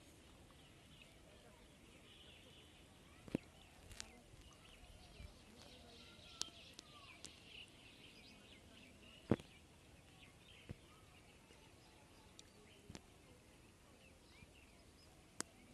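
Near-silent outdoor quiet with faint high bird chirps, broken by a few sharp clicks. The loudest click comes about nine seconds in.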